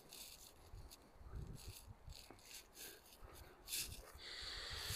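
Faint scattered rustling and soft knocks close to a clip-on microphone, followed by a steady hiss that starts about four seconds in.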